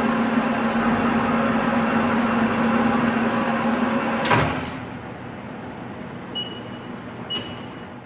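Geared engine lathe running with a steady hum. About four seconds in there is a clunk, and the machine noise falls away to a quieter background. Two short high beeps come near the end.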